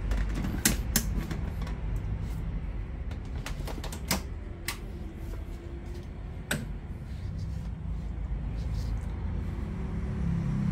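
Sharp stand fan running with a steady low motor hum while its head oscillates, now without knocking after its worn oscillation gearbox was replaced. A few sharp clicks sound in the first seven seconds.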